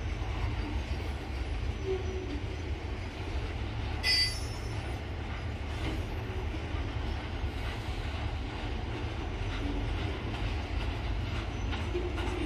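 Rail train of flatcars loaded with long rail sections rolling past with a steady low rumble. About four seconds in, a brief high-pitched metal squeal rises over it.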